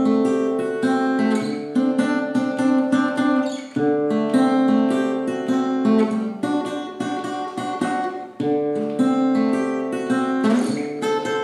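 Acoustic guitar played fingerstyle: a blues pattern of picked bass notes under plucked chord notes, the phrase starting over about every four and a half seconds.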